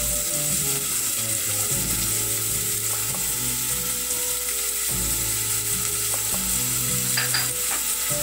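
Chopped onion and garlic frying in olive oil in a stainless-steel saucepan: a steady hissing sizzle.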